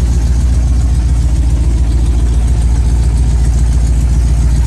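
1987 Chevrolet R10/C10 pickup's engine idling steadily, a deep, even pulse.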